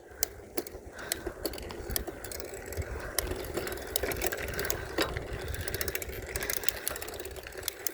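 Bicycle being ridden: a steady hum of tyres and drivetrain with a low rumble, and frequent sharp clicks and rattles from the bike.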